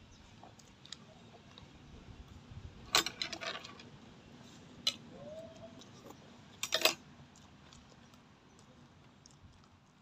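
A person eating close to the microphone: low chewing noise with two loud bursts of short crackling clatter, about three seconds in and again near seven seconds, a single sharp click near five seconds, and a brief rising tone just after it.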